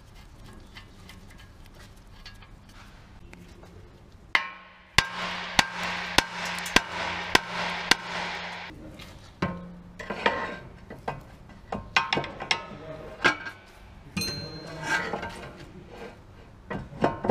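A power tool runs for about four seconds with sharp knocks about every half second, then stops; scattered metallic clanks and knocks of tools and parts follow.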